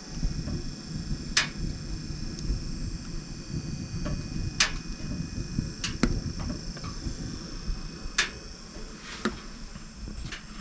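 Wood fire crackling in a small wood stove: sharp, irregular pops every second or two over a low rumbling noise.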